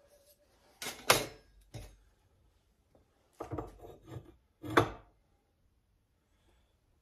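Hand tools and a steel axe head being handled and set down at a workbench: a handful of separate knocks and clatters, the loudest about a second in and near five seconds.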